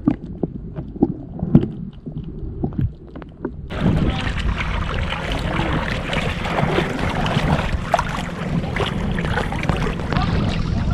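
Muffled underwater sound with scattered clicks and knocks from a camera held under the sea. About four seconds in it switches to the open air: water sloshing and splashing around legs wading through knee-deep shallow sea, with wind on the microphone.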